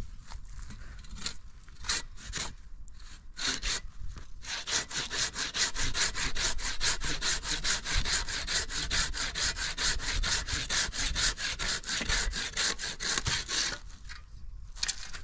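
A hand saw cutting wood. A few separate strokes give way about four seconds in to quick, even back-and-forth sawing, which stops shortly before the end.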